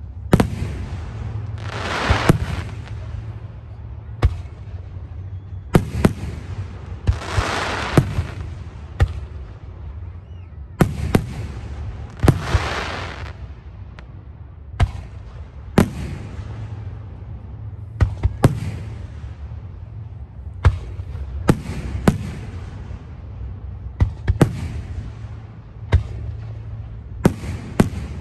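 Aerial fireworks shells bursting in a steady series of sharp bangs, one every second or two, with several longer hissing stretches between them and a steady low rumble underneath.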